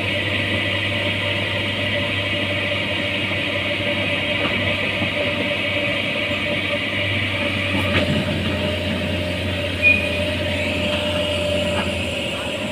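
Hitachi hydraulic excavator running steadily: an even diesel drone with a steady whine over it. A single sharp click about eight seconds in.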